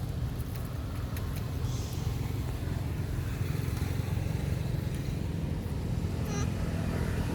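Steady low outdoor rumble, with a short high squeak about six seconds in.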